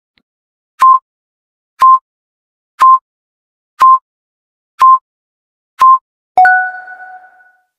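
Quiz countdown-timer sound effect: six short beeps, one a second, as the timer counts down to zero, then a two-tone chime that rings and fades over about a second, signalling that time is up.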